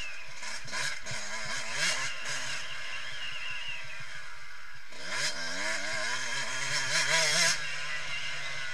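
A 2014 Yamaha YZ125's single-cylinder two-stroke engine revving hard under way. The revs fall away about five seconds in, then climb steeply and are held high before the throttle eases off near the end.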